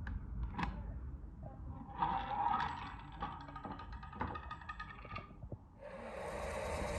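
Workshop tool handling: scattered clicks and knocks and a stretch of scraping, then a power tool starts running with a steady rushing noise about six seconds in.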